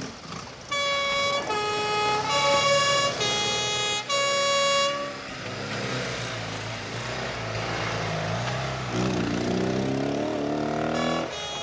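French police two-tone siren sounding its alternating high and low notes, switching about every three-quarters of a second. It stops about five seconds in, leaving vehicle engines running, and near the end an engine revs up, rising in pitch as it accelerates away.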